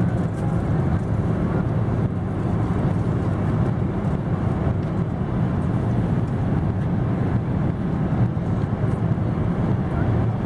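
Steady rumble of a Boeing 777's engines and airflow heard inside the passenger cabin, even and unchanging, with most of its weight in the low range.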